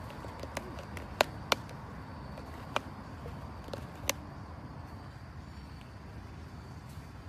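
Raccoon handling a plastic cup on a metal trash-can lid: a few sharp clicks and taps, the loudest two close together about a second in, over a steady low background rumble.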